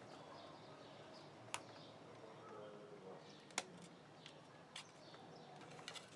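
Near silence with a few faint, sharp clicks.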